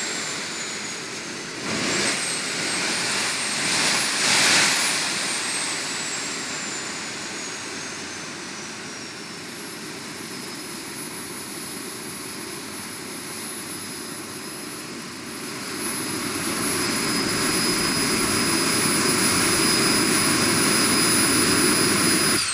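Small jet turbine engine on a jet-powered buggy running with a high whine. Its pitch jumps up twice in the first few seconds, then slowly sinks and levels off into a steady tone, and the rushing exhaust grows louder from about two-thirds of the way through.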